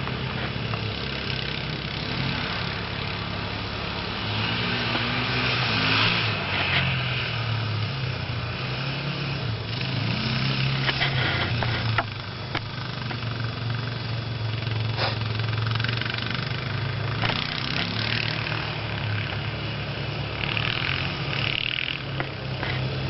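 Honda engine running steadily under load, its pitch shifting a little now and then, over a continuous hiss that swells at times, with a few sharp clicks.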